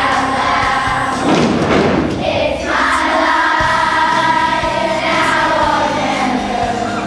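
Children's school choir singing a pop song, with soloists at microphones. About halfway through they hold one long note, then slide down.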